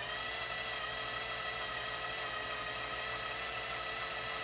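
Small electric drill spinning at a steady high-pitched whine while sinking a pilot hole into a diecast toy car's post for tapping threads.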